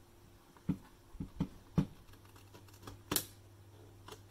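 Sharp plastic clicks and knocks as a thin screwdriver pries at the clips of a Nescafé Dolce Gusto Lumio coffee machine's plastic housing, five or so in all, the loudest about three seconds in.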